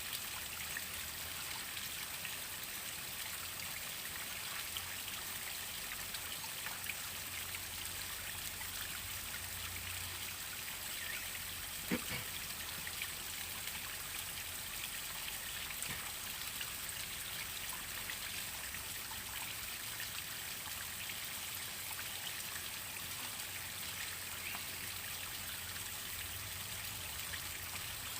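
Waterfall water falling and splashing steadily, with a fine trickling patter. There is one brief sharp knock about halfway through.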